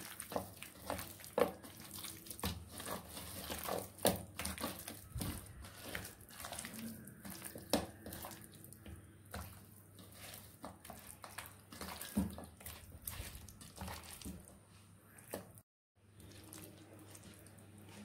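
Hand squishing and kneading chicken leg pieces in a thick wet masala marinade in a stainless steel bowl: irregular wet squelches and slaps. The sound drops out briefly near the end.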